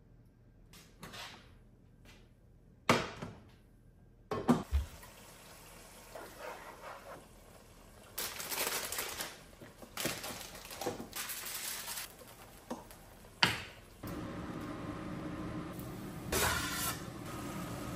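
Home cooking sounds: cooking oil poured into a frying pan, sharp knocks of pots and lids, and bursts of hissing noise around a pot of boiling water, then a steady hum from about fourteen seconds in.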